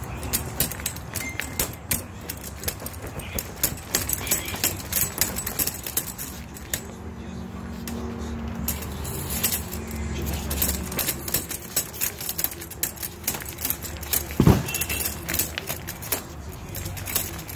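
Folding camp chair being handled: its metal frame tubes clink and rattle in a long run of quick clicks, with the fabric rustling, and one heavier thud about fourteen seconds in.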